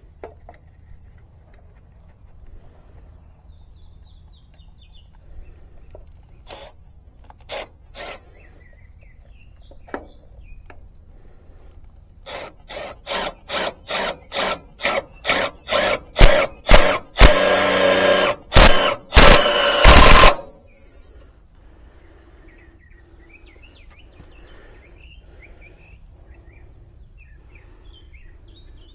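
Power drill driving a screw to mount a hard start kit, run in a string of short trigger pulses that grow louder, then two longer runs before it stops. A few light clicks of handling come before it.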